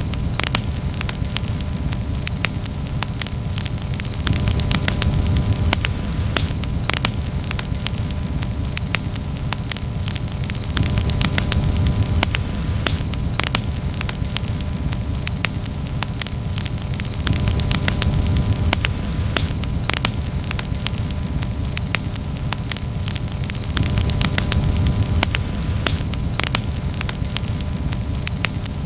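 Campfire crackling, with frequent irregular sharp pops and snaps over a steady low rumble.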